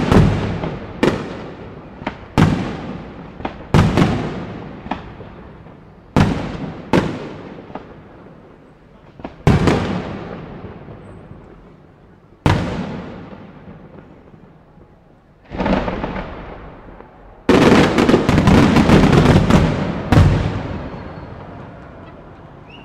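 Aerial firework shells bursting one after another, each bang trailing off in a long echoing rumble. About three-quarters of the way through, a rapid volley of bangs comes close together, followed by one more bang and a fading echo.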